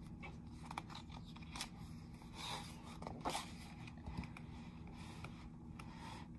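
Large paper pages of a picture book being handled and turned: soft rustles and scrapes, the loudest about two and a half and three and a half seconds in.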